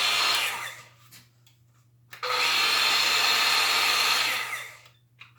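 Makita 12V max CXT cordless circular saw running free with no load, in short trigger pulls: it is running at the start and winds down within the first second, then starts again about two seconds in, runs for about two seconds and winds down near the end.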